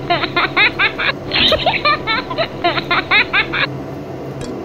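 A high-pitched giggling sound effect: a rapid string of short, squeaky laughs in two runs with a short break about a second in, stopping near the end. A few faint ticks follow.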